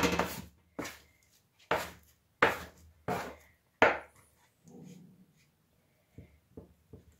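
Dough being cut into portions on the work surface: six sharp knocks of a blade chopping through the dough onto the table, a bit under a second apart, then a soft rustle and a few light taps.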